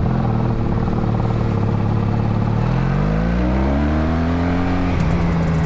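Honda Magna's V4 engine running under way, its pitch climbing steadily as the bike accelerates from about halfway in, then dropping sharply with a gear change near the end.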